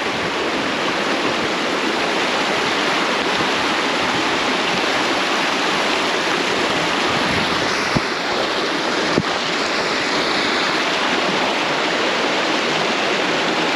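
Steady rushing of water falling and cascading over rocks at a waterfall, with two short clicks about eight and nine seconds in.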